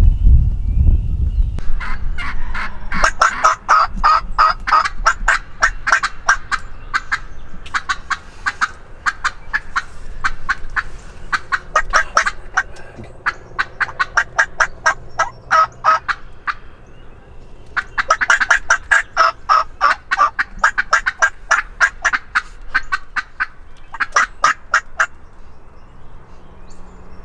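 Turkey calling in several runs of rapid, sharp, scratchy notes, each run lasting a few seconds, with short pauses between runs.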